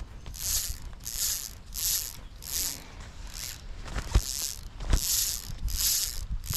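Footsteps of a person walking at a steady pace, about three steps every two seconds, each step a short scuffing hiss, with a few heavier low thumps partway through.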